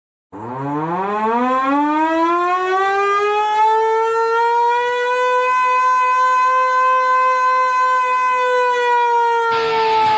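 Civil-defense warning siren winding up from a low pitch into a steady high wail, held for several seconds and starting to sag in pitch near the end. Broad crowd-like noise comes back in under it just before the end.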